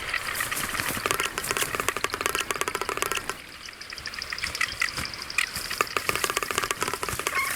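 Male frigatebirds giving rapid rattling, clattering courtship calls, a dense run of clicks that eases briefly about three seconds in and then picks up again.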